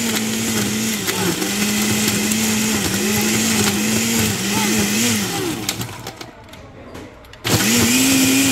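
Countertop blender motor running on a thick frozen milkshake mix, its pitch sagging and recovering again and again as the mix loads the blades. It winds down about six seconds in, then starts again at a higher, steady pitch, a higher speed setting.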